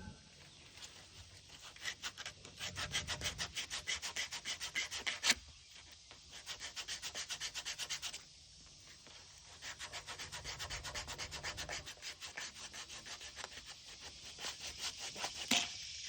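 Sandpaper rubbing back and forth on an AC drain pipe to scrape off paint, about four quick strokes a second, in three bursts with short pauses between them. A sharp click sounds twice, near the end of the first burst and near the end.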